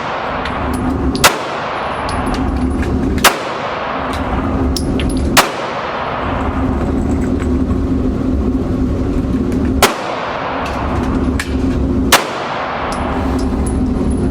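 Five single gunshots fired at an indoor range, spaced about two seconds apart with a longer gap in the middle, each loud crack trailing off in an echo. A steady low hum runs underneath.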